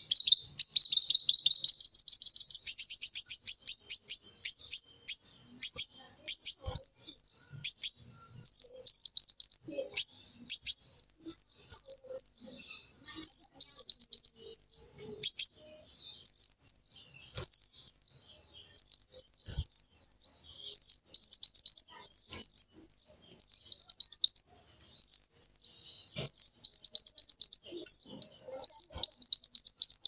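Kolibri wulung sunbird singing: a fast high-pitched trill at first, then a run of short chattering phrases of quick rising-and-falling notes, repeated with brief gaps.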